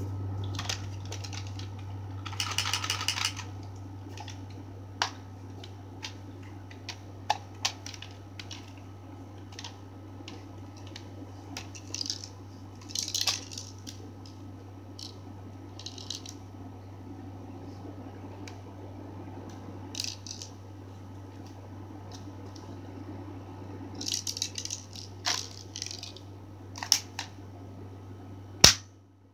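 Handling noise from a phone held right against fingers and fabric: rustling and scattered sharp clicks over a steady low hum. A brief buzzing rattle comes about three seconds in, and a sharp loud click near the end.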